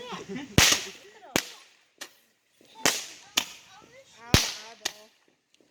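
Fireworks going off: about seven sharp cracks and bangs at uneven intervals over a few seconds, the loudest about half a second in and again past four seconds.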